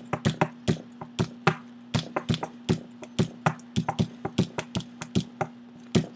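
Improvised percussive beat: quick, uneven taps, about five a second, over a steady low hum.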